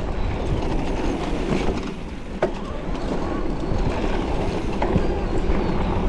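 Steady rush of wind and knobby tyres on a dirt trail as a Luna X2 electric mountain bike is ridden downhill, with rattles from the bike and a sharp knock about two and a half seconds in.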